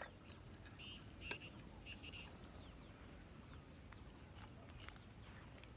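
Near silence with a few faint high bird chirps in the first couple of seconds, and a few soft clicks.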